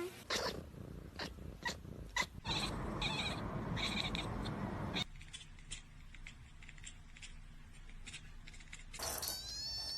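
Cats chattering at birds: quick clicking chatter and short high chirps. About nine seconds in comes a long, high-pitched meow lasting about a second and a half.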